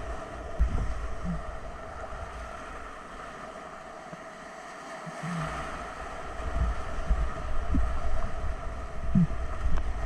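Whitewater rapids rushing around a kayak, with low buffeting and thumps on the camera microphone from wind and splashing water. The low rumble drops away for a couple of seconds in the middle, then comes back stronger.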